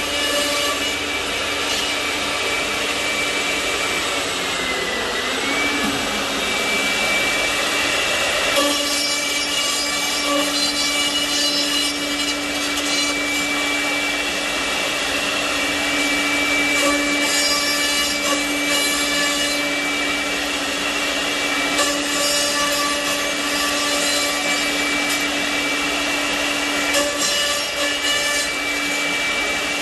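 CNC mortising machine running: a steady, high spindle whine that briefly dips in pitch and recovers, with bursts of grinding noise every few seconds as the bits cut mortises in wood.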